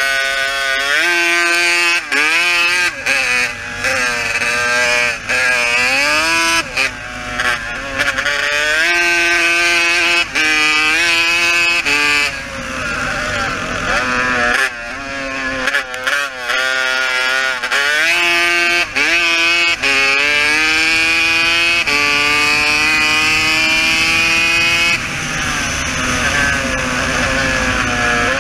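Racing quad bike's engine heard from on board under race throttle, its pitch climbing and then dropping sharply many times, with brief cut-outs in level. In the later part it holds a long steady high-revving run.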